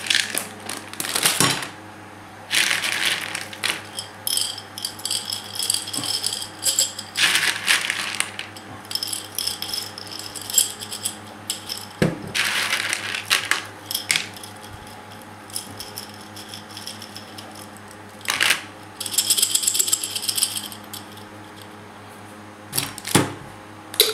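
Dry fusilli pasta rattling and clinking in irregular bursts: pieces shaken in a plastic bag and dropped into a glass jar.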